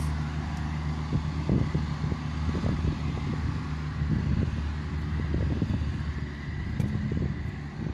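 Outdoor street noise: a steady low engine drone, with irregular rumbles from wind on the microphone.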